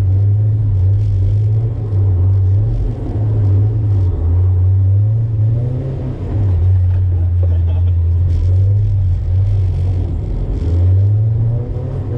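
Mazda MX-5 NB's four-cylinder engine heard from inside the cabin, its revs rising and falling again and again with the throttle as the car is driven hard on the skid pan.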